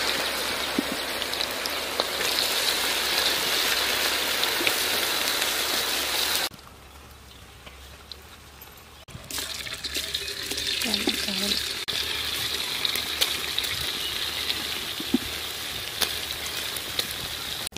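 Battered cauliflower pieces deep-frying in hot oil in a large kadai, a steady sizzling hiss. It drops sharply quieter about six seconds in and comes back a few seconds later.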